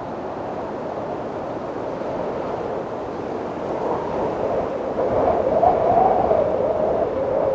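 Wind blowing steadily, swelling into a stronger gust about five seconds in, with a wavering whistle-like tone riding on it.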